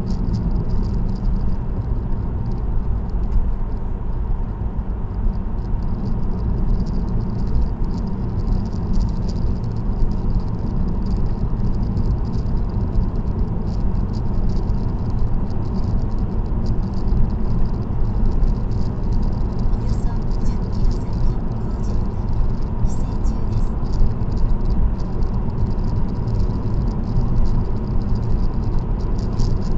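Steady road and tyre noise from inside a car cruising on an expressway, with a constant light, fast rattle high over it.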